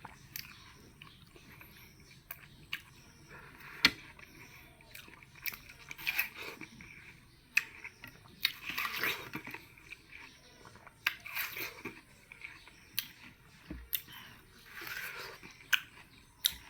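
Person eating watermelon close to the microphone: several wet, crunchy bites and chewing of the flesh every few seconds, with small sharp clicks in between.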